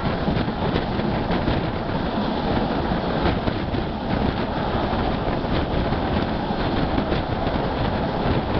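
Passenger train carriage running along the track, heard from an open window: a steady rumble of wheels on rail, with occasional faint sharp clicks.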